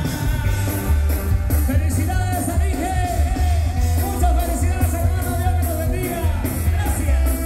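Live band music played loud through the PA, heard from the audience: a heavy bass line on a steady beat with cymbal strokes and a wavering lead melody over it.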